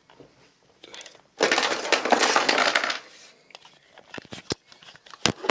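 Camera handling noise as the camera is carried and set in place: a loud rustling scrape against the microphone lasting about a second and a half, then a few sharp clicks and knocks near the end.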